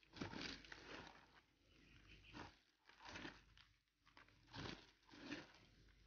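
Soft rustling and crunching of dry rice straw as handfuls are pulled from a sack and dropped into a basin, in a string of short bursts about a second apart.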